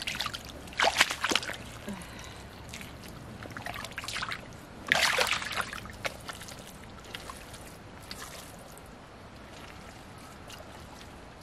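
Shallow muddy water splashing and sloshing as hands dig in the mud and legs in waders move through it, with louder splashes about a second in and about five seconds in.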